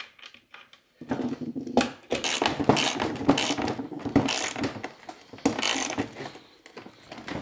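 Socket ratchet wrench clicking rapidly as it runs down the nuts that draw a carbide runner's studs up into a plastic snowmobile ski. It starts about a second in and stops shortly before the end.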